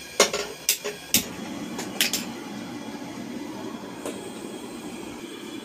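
Several sharp clicks from a hand-held gas lighter at a gas stove burner, which catches about a second in and then runs with a steady rushing flame. A light metal clank near the end as a pot is set on the burner.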